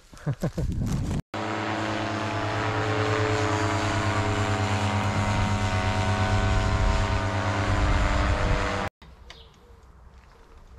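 Paramotor engine and propeller droning steadily as the paramotor flies. The sound starts suddenly about a second in and cuts off sharply near the end, leaving only a few faint clicks.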